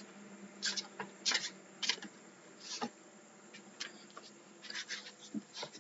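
Soft, irregular rustles and scrapes of tarot cards being handled and slid on a surface, about eight short strokes spread across the pause.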